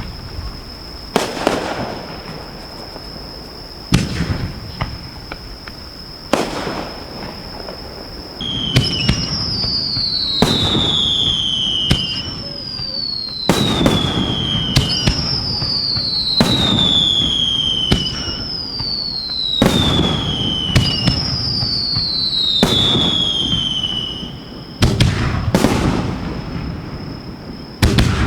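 Fireworks shells launched from mortar tubes at close range: a few sharp bangs, then from about eight seconds in a run of about six whistles, each starting with a bang and falling in pitch over about a second and a half, then more bangs near the end.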